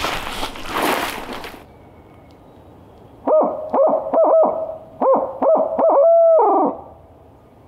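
Barred owl hoot given by a hunter as a locator call to make a turkey gobble: a quick run of short hoots ending in one longer drawn-out note that drops off at the end. Before it, for about the first second and a half, brush and dry leaves rustle as the hunters push through.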